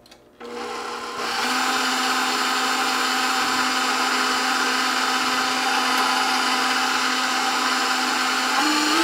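KitchenAid stand mixer running with its wire whisk, whipping heavy cream: the motor whine starts about half a second in, steps up in speed about a second later, rises again near the end and then cuts off.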